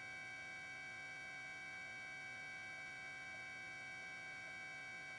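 Faint, steady electrical hum made of several even tones that stay unchanged throughout.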